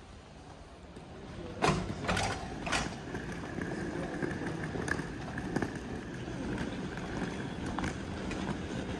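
Luggage trolley wheels rattling as it is pushed across a hard station floor, with three knocks about two seconds in. A thin steady whine runs over the rattle from about three seconds in.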